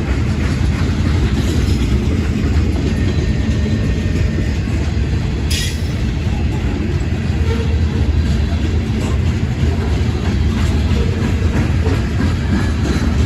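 Freight train rolling past, a loud steady rumble of wheels on rail with clickety-clack, and one short sharp high-pitched click about five and a half seconds in.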